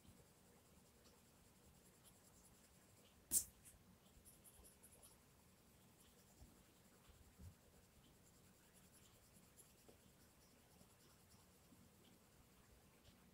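Faint strokes of a coloured pencil shading on colouring-book paper. One sharp click comes about three seconds in.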